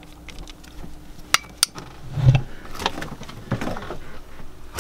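Metal clinks and knocks of hand tools and engine parts being handled while a heat-exchanger end cap is taken off a marine diesel generator. There are two sharp clinks about a second and a half in and a dull thump a little after two seconds.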